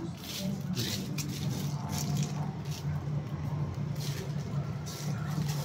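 Steady low machine hum with no change in pitch, with a few brief hissy scuffs over it.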